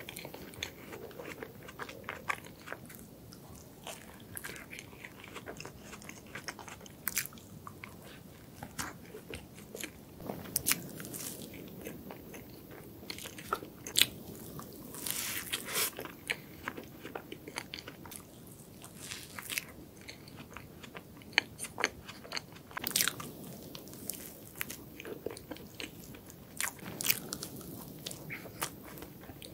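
Close-miked biting and chewing of soft cream-filled roll cake, with frequent sharp mouth clicks throughout.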